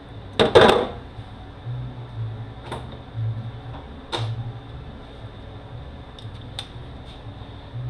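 A loud metallic clatter about half a second in, then a few light knocks: transmission parts and hand tools handled on a workbench during teardown.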